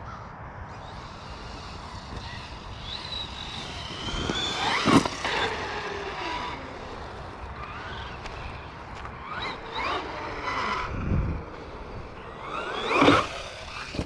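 Losi Lasernut electric RC truck running at speed: its motor whine rises and falls in pitch as it accelerates and passes, loudest about a third of the way in and again near the end.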